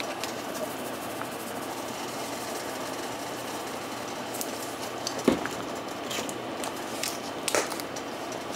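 Spice shaker clicking and knocking as powdered seasoning is shaken out over the pot, the loudest knock about five seconds in, over a steady machine-like hum.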